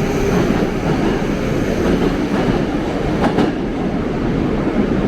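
Moscow Metro train running on the rails, a steady loud rumble with a couple of sharp clicks a little over three seconds in.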